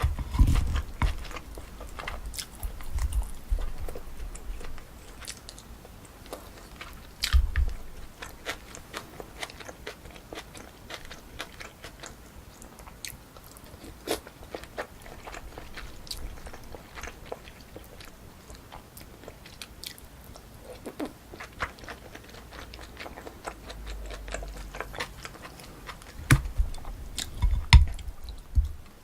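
Close-miked chewing of pork kimchi stew and rice, with many small mouth clicks and crunches. A few heavier knocks come near the start, about seven seconds in, and near the end.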